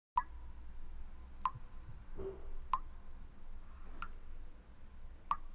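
A sharp tick with a short ring repeats evenly about every 1.3 seconds, five times, over a steady low hum.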